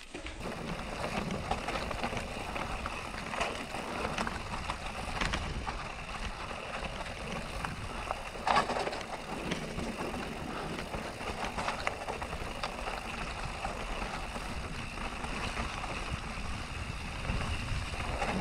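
Canyon Neuron CF9 mountain bike rolling down a wet stone-paved trail: steady rolling and rattling noise with scattered small knocks as the wheels run over the stones, and one louder knock about halfway through.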